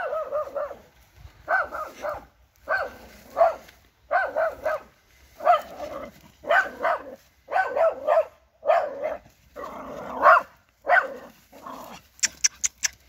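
Young Jagdterrier barking over and over in short volleys of two to four barks, baying at a wild boar. A quick run of sharp clicks sounds near the end.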